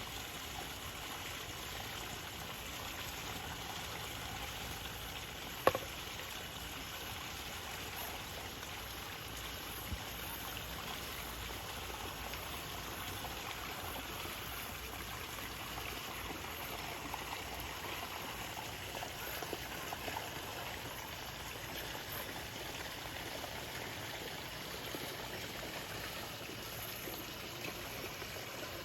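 Steady rush of running water from a small waterfall, with a single sharp knock about six seconds in.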